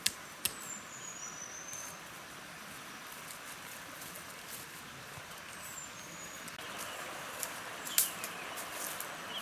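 Outdoor ambience with a steady hiss that grows a little louder later on. Birds give a few short, falling high whistles. A few sharp snaps from bare feet on dry twigs and leaf litter stand out, the loudest near the end.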